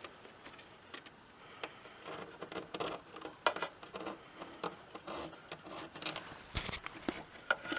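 Hand-handling noises from the welding machine's wire feed and the welding wire: irregular small clicks, taps and light rattles, with the sharpest click about three and a half seconds in.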